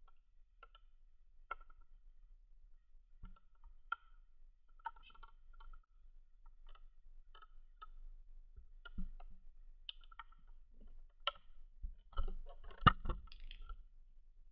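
Zebra finch giving scattered soft, short chirps, several every second or two. Near the end comes a cluster of louder clicks and taps.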